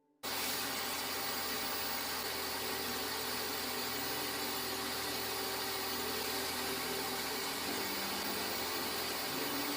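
A motor-driven workshop tool running steadily, a loud hiss with a low hum, starting abruptly; its hum shifts slightly in pitch near the end.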